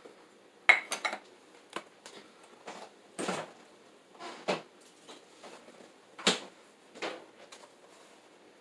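Kitchenware being handled: about ten irregular, sharp clinks and knocks of dishes and utensils, the loudest under a second in.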